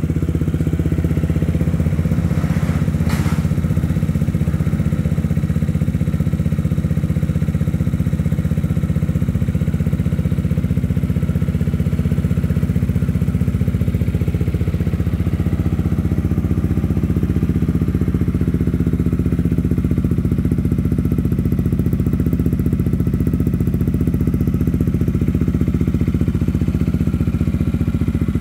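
Yamaha XMAX 250's single-cylinder engine idling steadily through a stainless Vilan MV1 aftermarket exhaust with its dB killer removed. A brief click about three seconds in.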